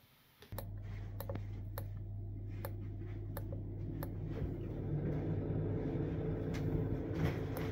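Nuaire Eco Heat HC positive input ventilation fan humming through its ceiling grill plate, the hum growing slowly louder as the unit is stepped up through its speed settings toward speed 6. Several light clicks of the grill's speed buttons being pressed come in the first half.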